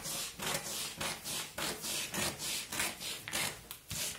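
Scissors cutting through brown pattern paper along a curved line, a steady run of crisp snips about three a second.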